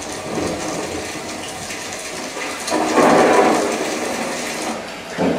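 Rain and water sound effects from a Dolby Atmos demo clip, played through a Sennheiser Ambeo soundbar and picked up by a camera microphone in the room. It is a steady rushing hiss that swells louder for about two seconds, starting almost three seconds in.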